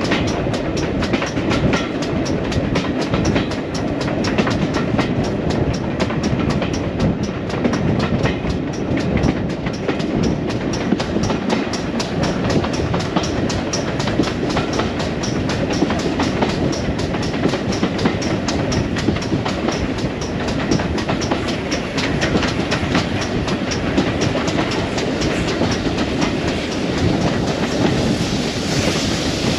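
Passenger train running along the line, heard from aboard a coach: wheels rumbling over the rails with a fast, even clicking beat, and a brighter hiss rising near the end.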